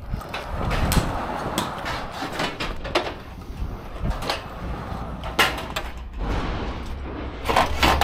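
Side curtain of a curtainsider trailer being pulled open along its top rail: a continuous sliding, rustling sound from the tarpaulin, with scattered clicks and knocks from its buckles and straps.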